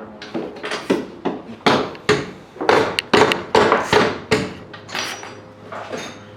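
A run of irregular hammer-like knocks and bangs on metal parts, densest through the middle and thinning out near the end.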